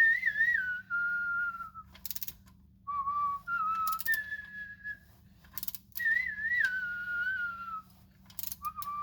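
A person whistling a tune in several short melodic phrases, the pitch gliding and wavering, with a few sharp clicks in between.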